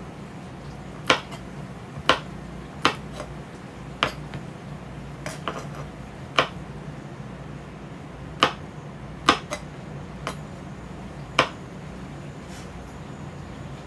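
Kitchen knife chopping yard-long beans on a cutting board: about a dozen sharp knocks of the blade against the board at uneven intervals, over a faint steady low hum.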